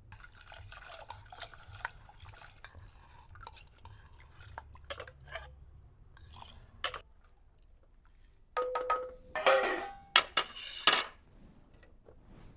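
Metal pots and utensils clinking and clattering in the kitchen, with a short run of louder clanks and rattles a little past halfway.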